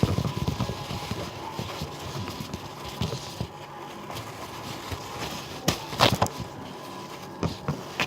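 Rustling and rubbing as a wet bowl is wiped dry, with many small handling clicks and a few louder knocks about six seconds in.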